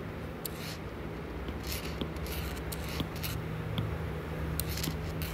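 Stylus scratching on a tablet screen in a series of short strokes while handwriting numbers, over a steady low hum.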